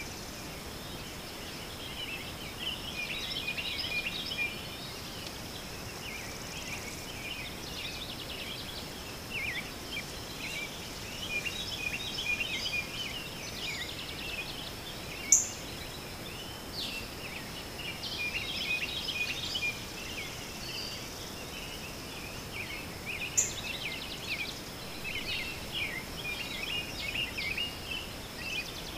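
Many birds chirping and twittering in a dense, busy chorus over a faint steady high tone, broken by two sharp clicks about halfway and two-thirds of the way through.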